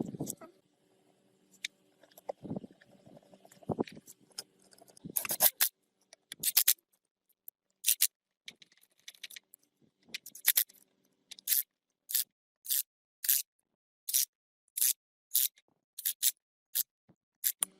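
A few dull knocks, then a run of short scraping strokes by hand on a hard surface. The strokes start irregularly and settle into a steady rhythm of nearly two a second.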